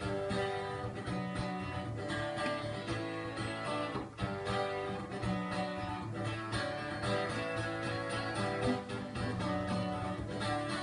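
Classical guitar strummed in a steady rhythm, full chords ringing, with no voice.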